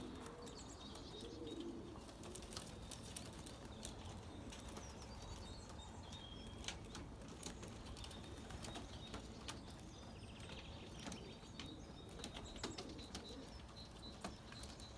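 Young racing pigeons cooing softly, with scattered small clicks; faint overall.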